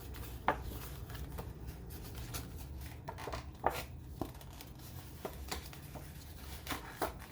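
A long paper scratch-off lottery ticket being bent and handled: scattered short crinkles, clicks and scrapes over a low steady hum.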